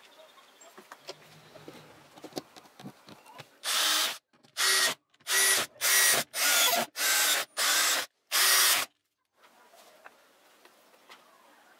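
Power screwdriver driving screws through the bottom panel into a wooden speaker box, running in seven short bursts about half a second each.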